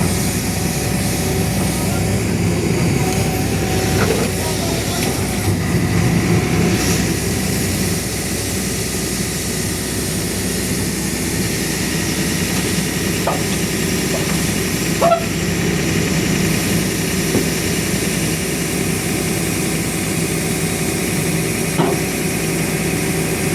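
Diesel engine of a JCB excavator running steadily, with a few short knocks or clicks over it.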